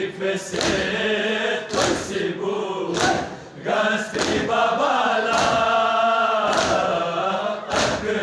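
Men's voices chanting a Balti noha, a Muharram lament, in unison. A crowd's chest-beating (matam) strikes land together on the beat, a sharp slap about every 1.2 seconds.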